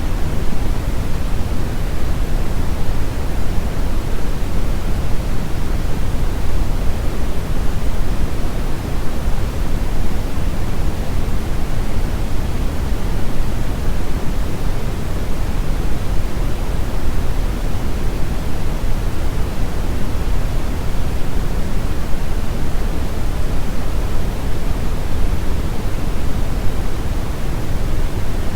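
Steady noise sound effect, an even hiss with no change at all. Most of its weight is in a low rumble, with a softer hiss above.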